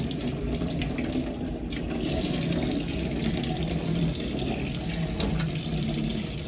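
Tap water running steadily into a stainless steel sink, splashing over a rabbit carcass as it is rinsed and rubbed by hand.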